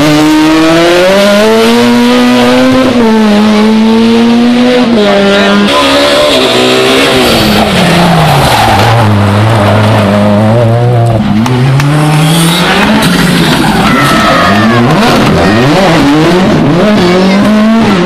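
Rally car engines revving hard, one car after another, the pitch climbing and dropping again and again as they brake, change gear and accelerate through bends. The first is a Renault Twingo rally car taking a hairpin.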